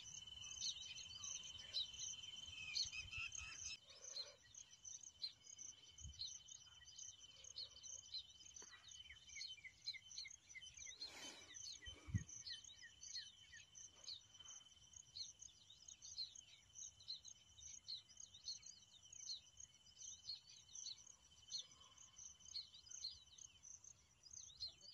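Male baya weaver singing: a rapid, faint stream of short, high chirps. A steady high insect buzz runs underneath and drops out briefly near the end.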